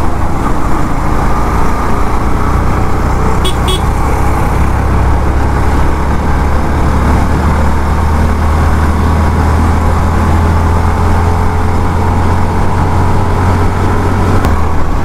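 Yamaha FZ-X motorcycle ridden at a steady cruising speed: constant wind rumble on the rider's microphone with engine and road noise, and a brief clicking about three and a half seconds in.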